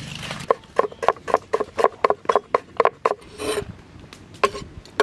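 A quick series of sharp knocks, about four or five a second, each with a short metallic ring. A few single knocks follow near the end.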